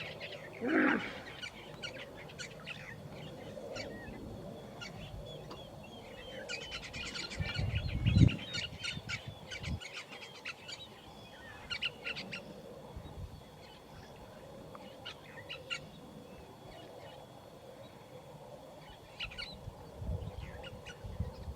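Birds calling and chirping, with a hippopotamus in the water giving one loud deep grunt about a third of the way in and fainter low grunts later.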